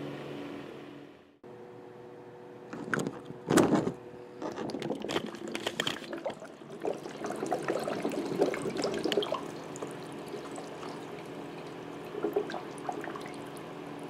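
Water coming back through a clear plastic tube, pouring and trickling into a plastic tub of heated water, busiest in the middle and lighter near the end, over a steady low hum. Two sharp knocks sound about three seconds in.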